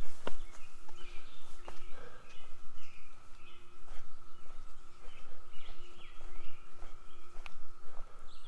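Several songbirds chirping and trilling, with scattered footsteps of a hiker walking the trail.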